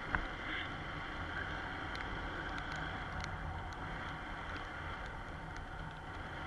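Motorcycle riding along a wet road: a steady low drone of engine, wind and tyre noise, with a few faint ticks.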